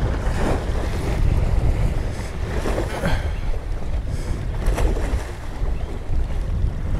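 Steady wind buffeting the microphone with a low rumble, over waves washing against the jetty rocks, with a few brief swells of splash noise.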